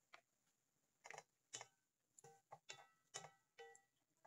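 A cooking utensil clinking and scraping against a frying pan as food is stirred. There are about eight short strokes, each ringing briefly, and they come closer together in the second half.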